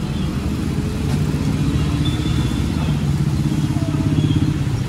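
A motorcycle engine running close by: a steady low drone that strengthens about a second in. It sits over the even rush of a gas burner.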